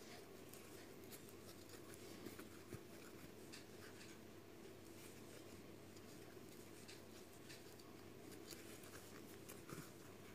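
Near silence: faint scratching and small scattered ticks of a crochet hook and cotton yarn being worked by hand, over a steady low hum.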